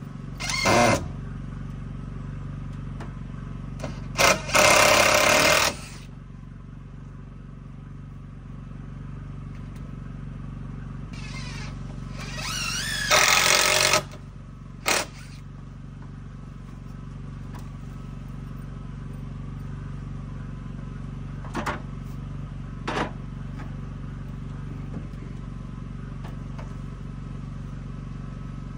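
Cordless impact driver driving screws into the porch's timber rafters and braces, in several bursts of one to two seconds, the longest about four to six seconds in and again around twelve to fourteen seconds, its motor pitch wavering as it runs. Two short knocks follow near the end, over a steady low hum.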